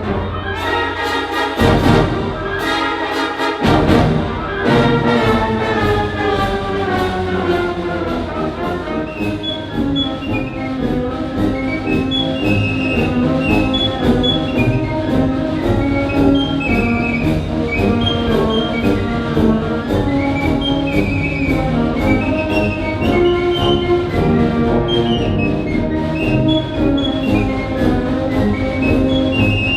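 Orchestral music with brass instruments and a steady percussive beat.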